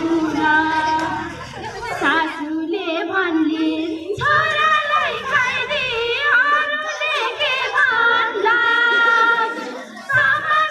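Women's voices wailing in mourning, a drawn-out sung crying with long wavering notes and no instruments, breaking off briefly a few times.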